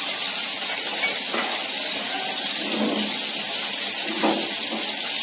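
Steady hiss of a pot of milk heating on the stove, with three faint brief sounds about a second and a half apart.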